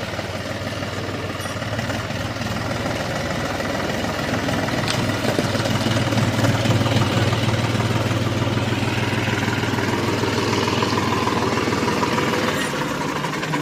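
New Holland 4710 tractor's three-cylinder diesel engine running steadily, a little louder in the middle, as the tractor moves slowly on loose stones.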